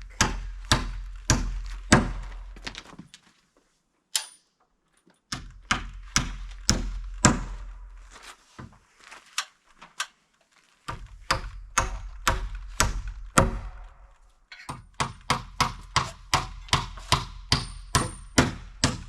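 Hammer driving nails into wooden siding boards: runs of quick, sharp strikes, about two to three a second, broken by a few short pauses.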